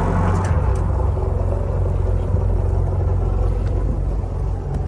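Lagoon 55 catamaran's diesel engines running steadily in forward gear at low speed, a constant low drone.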